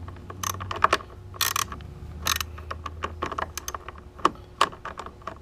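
Hand socket ratchet clicking in short, irregular runs as bolts are tightened, with a few louder metallic clatters.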